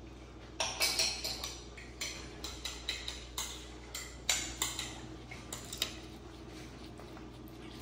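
A metal fork stirs a chickpea salad in a ceramic bowl, with irregular clinks and scrapes against the bowl from about half a second in until about six seconds in.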